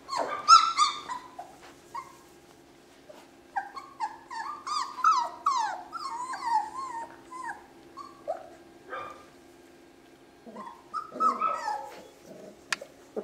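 German shorthaired pointer puppies yipping and whining as they play, in quick strings of short, high, falling cries: a burst about half a second in, a long run from about four to seven seconds, and another around eleven seconds.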